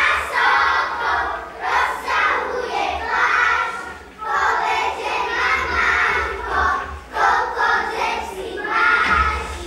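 A group of young children singing a folk song together in phrases, with short breaks between lines.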